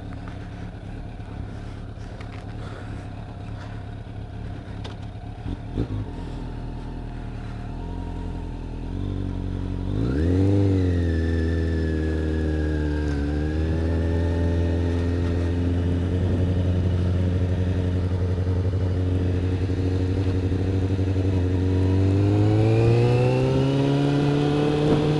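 Motorcycle engine running at low revs while rolling slowly, with a few light clicks and clatter in the first seconds. About ten seconds in it revs up as the bike pulls away, holds a steady pitch, and rises again near the end as it accelerates.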